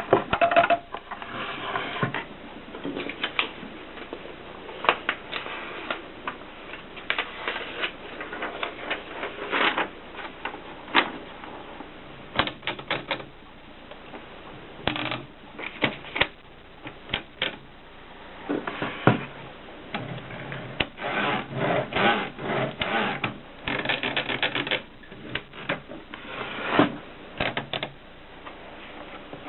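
Olympia Filia portable manual typewriter being typed on: irregular runs of quick, sharp key strikes separated by short pauses.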